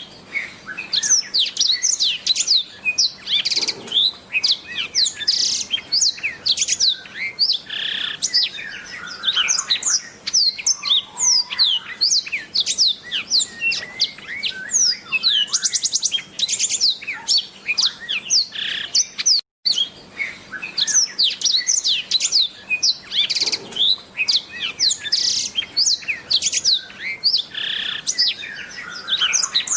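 Black-throated canary (blackthroat) singing a long, fast, continuous song of rapid high chirps and quick downward-slurred whistled notes, broken by a momentary gap about two-thirds through.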